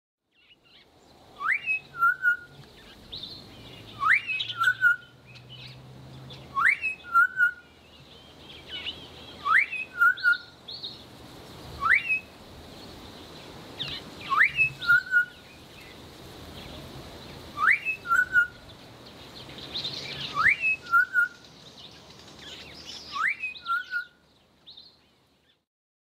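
A pair of southern boubous duetting: a quick rising whistle from the female, answered at once by the male's short lower note. The exchange repeats about nine times, roughly every two and a half seconds.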